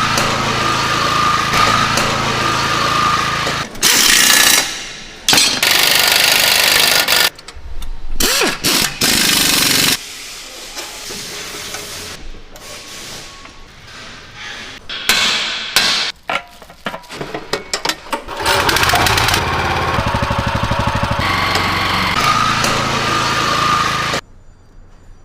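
Factory work on small farm machines in a string of short clips that cut abruptly from one to the next: small engines running, and power tools and hammering on metal. The sound drops away sharply near the end.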